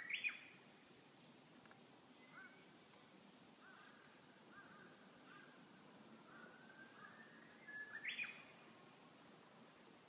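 Japanese bush warbler singing. Its quick 'ho-ke-kyo' flourish ends one song right at the start. A full song comes about three-quarters of the way through: a long rising whistle, then the quick 'ho-ke-kyo' flourish. Faint short notes fall in between.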